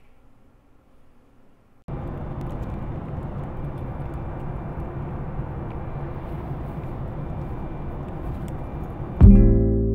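Faint room tone, then about two seconds in a steady, even rush of airliner cabin noise cuts in. Just before the end, acoustic guitar music comes in loudly over it.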